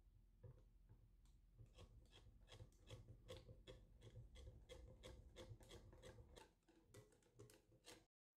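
Stainless wire whisk clicking against the sides of a glass mixing bowl as it beats a thin liquid chocolate mixture: a faint, fast run of light clicks, about three or four a second, growing softer over the last couple of seconds.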